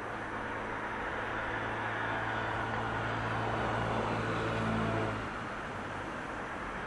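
Stanier 8F 2-8-0 steam locomotive 48151 with its train, moving slowly through the station: a steady noise that grows louder, with a low steady hum that stops suddenly about five seconds in.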